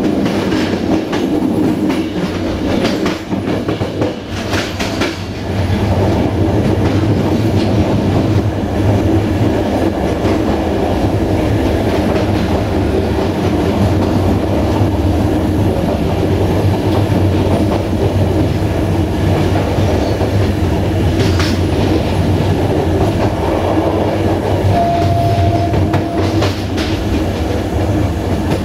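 A passenger train running along the track, heard from its rear end: a steady rolling rumble of the coach wheels on the rails, with clusters of clickety-clack as the wheels cross rail joints in the first few seconds and again twice near the end. A short steady tone sounds briefly about 25 seconds in.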